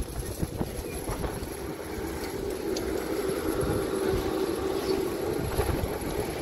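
Class 455 electric multiple unit standing at the platform, its onboard equipment humming steadily, the hum swelling a little in the middle. A low, irregular rumble runs underneath.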